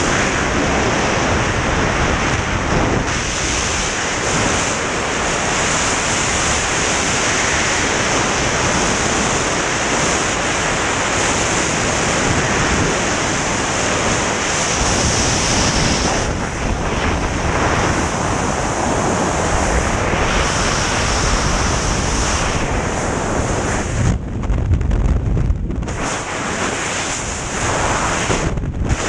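Rush of freefall wind buffeting the microphone, a loud, steady hiss of air during a skydive. About five seconds from the end the high hiss briefly thins and a heavier low buffeting takes over before the rush returns.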